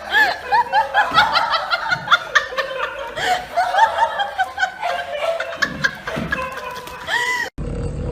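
A person laughing hard in quick, high-pitched bursts that repeat several times a second, cut off abruptly about seven and a half seconds in, after which a steady low hum follows.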